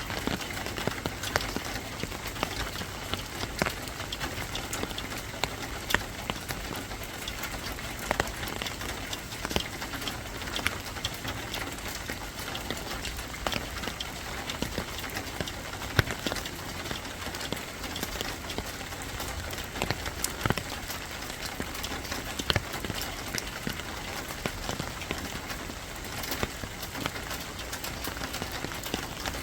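Rain falling steadily, a continuous patter with scattered sharper drop taps throughout.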